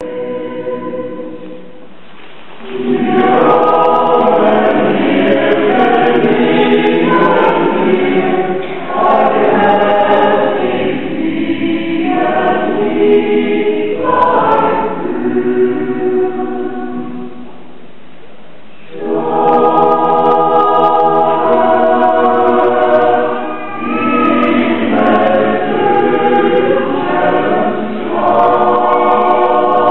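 A small mixed choir singing together, phrase by phrase, under a conductor, with two short breaks between phrases.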